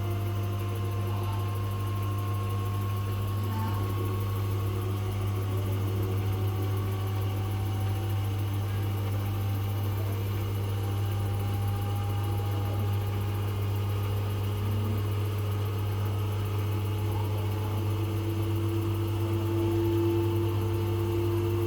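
Washing machine running with its drum turning again after a repair: a steady low hum with a faint motor whine slowly rising in pitch.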